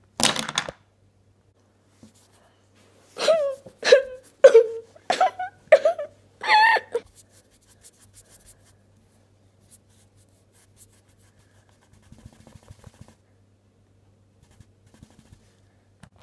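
A short rustling burst, then a run of six short, high-pitched vocal squeaks, the last one the highest; faint handling noise follows later.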